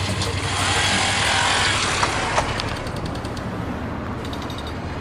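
Motorcycle engine running with a steady low hum as the bike pulls away, under a rush of noise that swells over the first two seconds or so and then fades.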